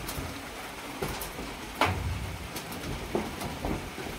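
Monkeys walking on a wet corrugated metal roof: a few scattered knocks and rattles on the sheet metal, the loudest thump about two seconds in, over a steady hiss of rain.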